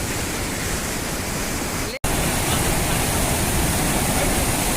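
Steady, loud rushing noise, cut off for an instant about two seconds in and then going on slightly louder.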